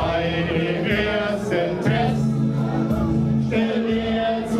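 A man singing a carnival song through a microphone and PA, with others singing along, over sustained backing music.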